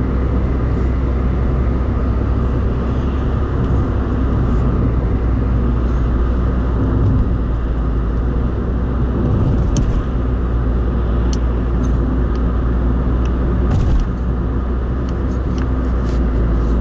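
Steady road and engine noise of a car driving at highway speed, heard from inside the cabin as a low rumble, with a few light clicks in the second half.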